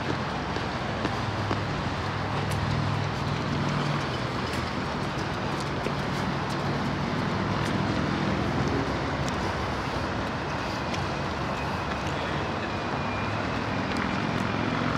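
Steady city background noise with a low engine drone, strongest in the first few seconds and then fading back into the hum.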